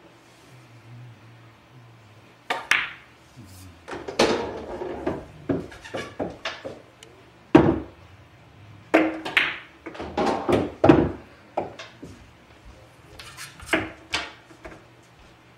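Pool balls being played: the cue tip striking the cue ball, sharp clacks of ball on ball, and balls knocking into the pockets and rolling, in clusters every second or two.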